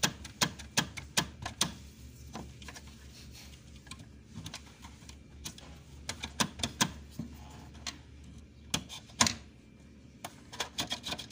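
Irregular sharp plastic clicks and knocks from an electric oven's push-button switch mechanism being handled and worked, some in quick runs of several clicks, the loudest about nine seconds in.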